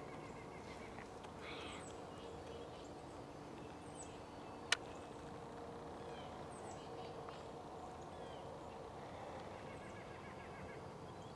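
Faint bird calls: scattered short chirps, with one sharp click a little before the middle.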